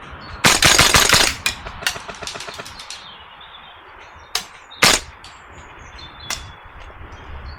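Gas blowback airsoft rifle firing: a rapid burst of shots about half a second in, a few quick follow-up shots, then single shots spaced a second or more apart.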